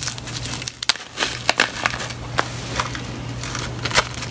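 Crackly rustling and scattered sharp clicks as hands handle a plastic-wrapped bath bomb sample among foam packing peanuts in a cardboard box.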